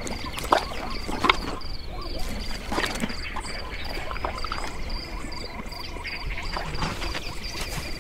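Savanna ambience: a steady insect buzz and rapid high chirping, about three chirps a second, over a low wind rumble. A few short, sharp creaks or squeaks stand out in the first three seconds.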